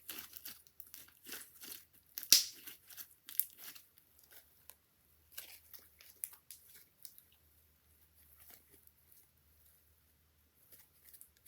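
Hands kneading and stretching glossy glue slime: irregular sticky crackles and pops, thick over the first few seconds with one sharp loud snap a little over two seconds in, then sparser and fainter.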